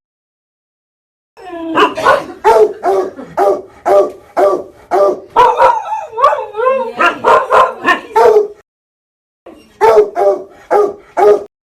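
A dog barking in rapid runs, about two to three barks a second, with a brief wavering whine in the middle. The barking starts about a second and a half in, pauses for about a second near the end, then starts again.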